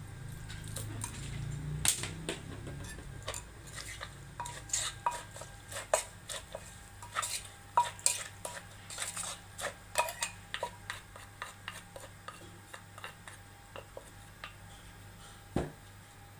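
A metal spoon clinking and scraping against a clay mortar as shredded papaya salad is tossed and mixed, in irregular clicks and knocks a couple of times a second that thin out toward the end, with one heavier knock near the end.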